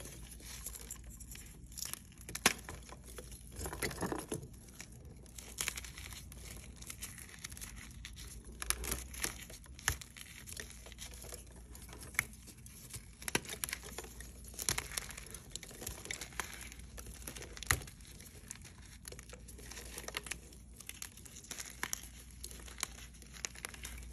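Hard reformed chalk blocks being crushed and crumbled between the fingers: a continuous dry crunching and crackling of powdery chalk. Sharp snaps come as hard pieces break, loudest about two seconds in and again near the three-quarter mark.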